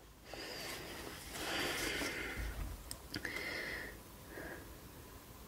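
Faint rustling and crinkling as a printed paper pattern sheet is handled and shifted, with a few short soft hisses later on.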